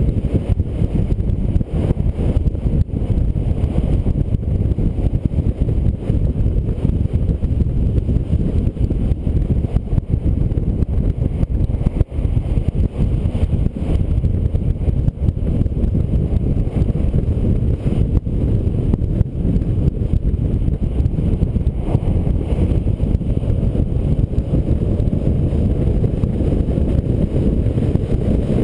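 Steady wind and road rumble on a roof-mounted action camera riding on a Mini at highway speed, with no clear engine note standing out.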